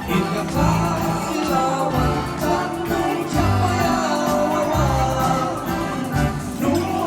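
Music with a singing voice and a steady bass beat.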